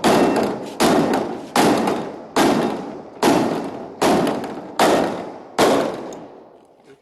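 Hammer blows on a transparent plastic kayak hull in an impact test of its strength: eight heavy thuds, just under a second apart, each ringing on and dying away before the next.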